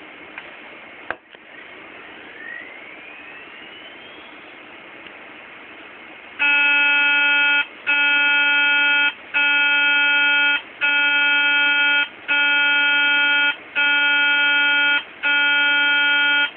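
Hard disk drive making an abnormal noise: a click about a second in and a faint rising whine, then from about six seconds a loud buzzing beep of about a second, repeating roughly every second and a half.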